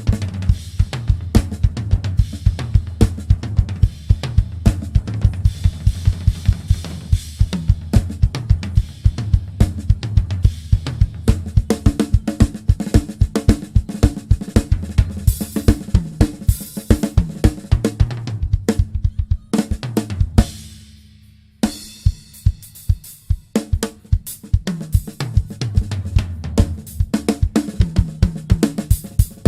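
Music driven by a full drum kit: a fast, steady beat of snare, kick drum, hi-hat and cymbals over a pitched bass line, with a brief break about twenty seconds in before the beat returns.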